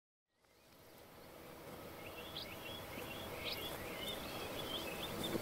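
Outdoor ambience fading in from silence, with small birds chirping in short, repeated calls over a steady background hiss.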